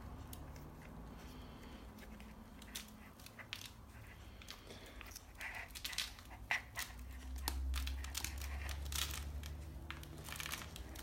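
Faint crinkling and clicking from a plastic bath confetti cannon tube being handled and pushed. The sound is sparse at first and becomes busier after a few seconds, with a low rumble partway through.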